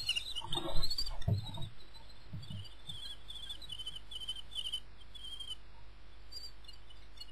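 Common kestrel chicks calling in runs of high, wavering, quickly repeated notes that thin out after about five seconds. A few dull thumps sound in the first two seconds or so, the loudest about a second in.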